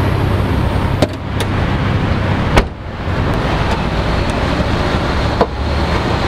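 Suzuki Dzire's AGS automated manual transmission warming up: a steady mechanical hum from the car's front, over which the bonnet being unlatched and lifted gives a few sharp clicks and one loud clack about two and a half seconds in.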